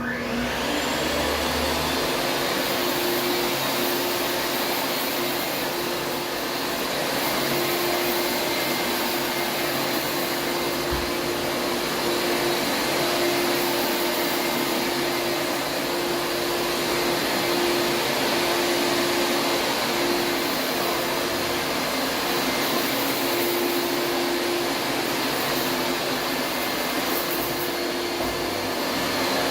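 Taski Tapitronic Electronic 38 upright vacuum cleaner switched on, its motor winding up in pitch over about a second, then running steadily while vacuuming carpet.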